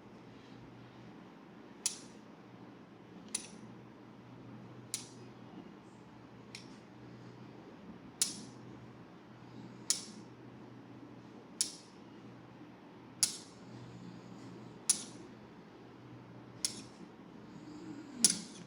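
Sharp clicks at a steady pace, about one every second and a half, over a faint low hum.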